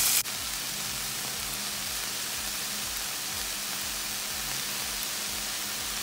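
Broccoli, garlic and onion sizzling in hot oil in a frying pan as a steady hiss. A louder sizzle cuts off suddenly a fraction of a second in, leaving a quieter, even sizzle.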